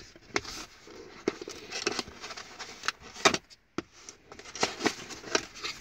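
Hands handling a cardboard camera box and paper manuals: irregular rustling and scraping with light taps, the sharpest about three seconds in.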